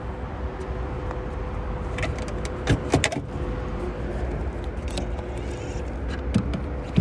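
Sharp clicks and rattles from a Tesla Supercharger's charging connector and cable being handled at a car's charge port, the loudest cluster about three seconds in. Under them runs a steady low rumble with a faint steady hum.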